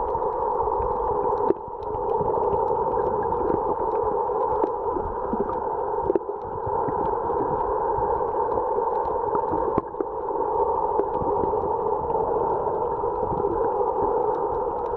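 Underwater sound picked up by a camera in a waterproof housing: a steady, muffled rushing hum with scattered faint clicks, dipping briefly three times.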